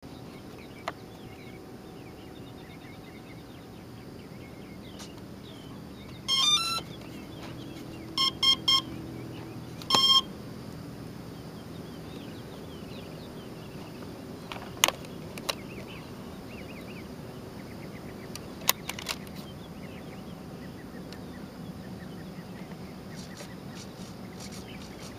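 Electronic beeps from a radio-control model plane's gear being powered up: a short rising two-note tone about six seconds in, then three quick beeps, then one longer beep, a start-up and arming pattern typical of an electric motor speed controller. A few sharp clicks and faint bird chirps over steady outdoor background noise.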